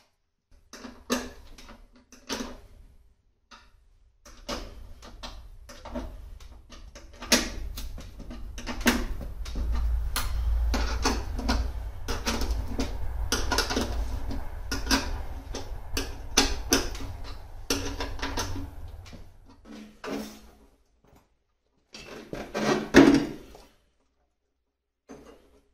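Irregular knocking and clattering of metal engine parts and tools being handled and fitted, with a low rumble under most of it and the loudest clatter near the end.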